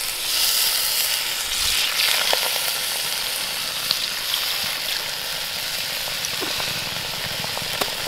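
Venison bone broth poured from a glass jar into a hot 12-inch cast iron Dutch oven of browned venison, sizzling and hissing as it hits the hot iron. The sizzle is strongest in the first couple of seconds, then settles to a steady sizzle.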